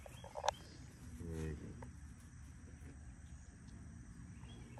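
A short, low moo from one of the cattle about a second in, over quiet pasture ambience with faint insect chirping. A single sharp tap comes just before the moo.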